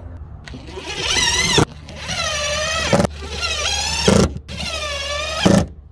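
DeWalt cordless impact driver running in four short runs of about a second each, its whine wavering in pitch, as it drives screws through the mounting plate of a flush-mount rod holder into the boat deck.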